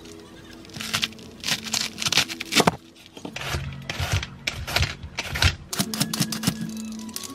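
Fresh cabbage being cut and shredded: crisp scraping strokes of a cleaver and then a Y-shaped peeler shaving through the cabbage head, about two a second, over background music.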